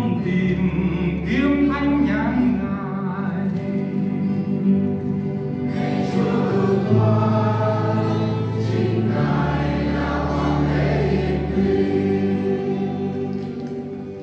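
Church choir singing the responsorial psalm of a Catholic Mass in Vietnamese, over accompaniment with long held low notes that change every few seconds. The sound dies away near the end.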